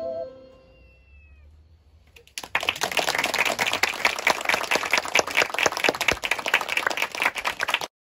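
An ocarina ensemble's final held chord ends and dies away, then a small audience claps steadily from about two and a half seconds in until the sound cuts off suddenly near the end.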